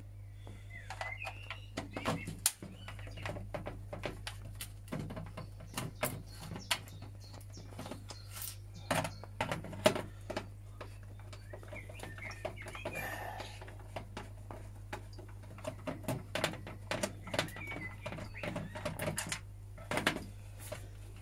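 Screwdriver working screws out of the plastic casing of a handheld Vax vacuum cleaner: scattered clicks, scrapes and knocks of the tool and the plastic housing on a glass tabletop.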